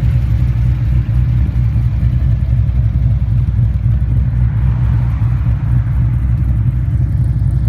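Car engine running steadily: an even, low rumble with no change in speed.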